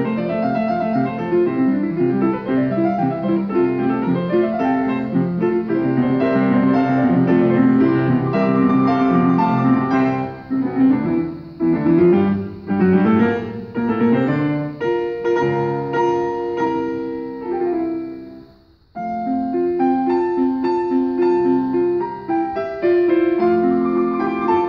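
Two grand pianos playing a classical duet together, with runs and sustained chords; midway the playing turns to short, separated chords, and a little after three quarters of the way through the sound dies away briefly before both pianos resume.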